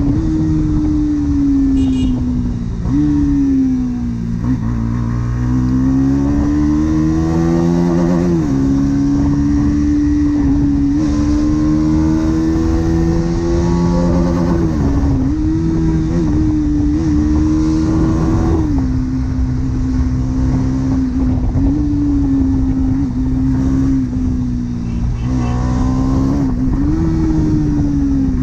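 Bajaj Pulsar NS200's single-cylinder engine running on the road through its stock exhaust. The revs dip and climb again several times and fall away near the end.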